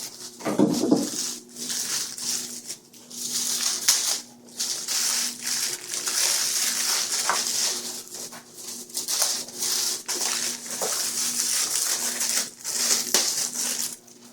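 Packaging rustling and crinkling in handling, with scattered clicks and knocks, as a soundbar is taken out of its box.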